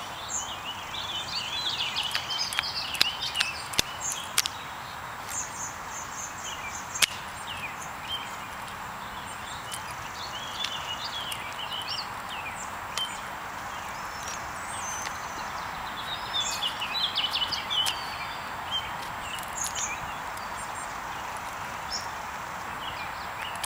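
Birds chirping and singing in short repeated phrases over a steady outdoor hiss, with a few sharp clicks in the first several seconds, the loudest about seven seconds in.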